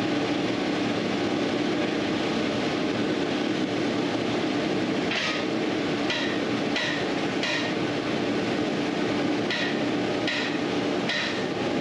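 Steady background hum, joined about halfway by a run of short, sharp knocks about two thirds of a second apart, in two groups of four.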